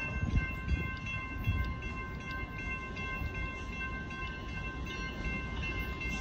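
Railroad crossing warning bell ringing steadily at an active grade crossing, over a low rumble.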